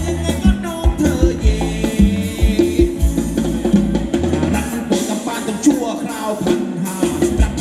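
Thai ramwong dance music played by a live band, drum kit and bass keeping a steady beat. The kick and bass drop out about five seconds in and come back near the end.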